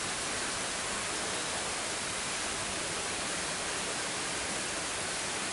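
Steady rain falling, a continuous even hiss.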